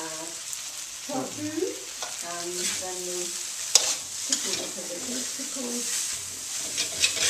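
Pad thai noodles sizzling in a stainless-steel wok over a gas flame, stir-fried with a metal spatula that scrapes and clacks against the wok, one sharper clack about halfway through.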